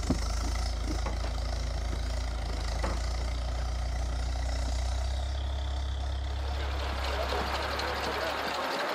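Tractor engine running steadily, driving a log-loaded converted military trailer through its power take-off, with a few brief knocks from the rig. The low engine hum cuts off near the end.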